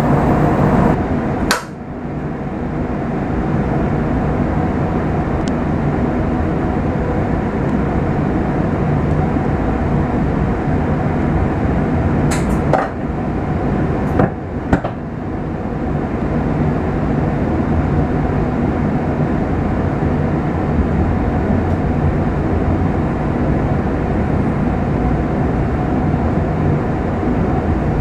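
Shinkansen bullet train running, heard from inside the passenger cabin as a steady rumbling ride noise. There is a sharp knock about a second and a half in, and a few more sharp knocks around the middle.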